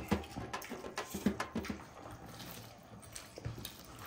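Wet chewing and lip-smacking of people eating grilled chicken and mandi rice with their hands. There is a quick run of sharp smacks through the first two seconds, then it gets quieter.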